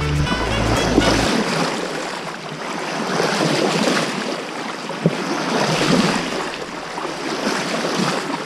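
Sea water rushing and splashing along the hull of a sailboat under sail, with wind on the microphone. Background music cuts off about a second in, and a single sharp tick sounds about five seconds in.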